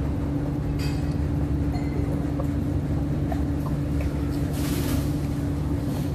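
Steady low machine hum holding a constant pitch, with a few faint clicks and a short hiss about four and a half seconds in.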